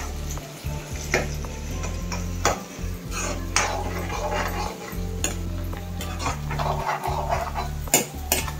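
A metal spoon stirring frying garlic and shallots in a metal kadai, scraping and knocking against the pan in a run of short clicks and clatters.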